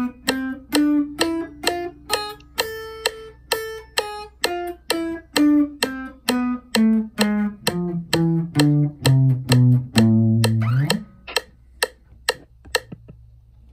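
Electric guitar playing the A harmonic minor scale one picked note at a time, about two or three notes a second. It goes up to a high point and then back down to the low A, which is held and ends in a slide up. A few faint string clicks follow, with a steady low amplifier hum underneath.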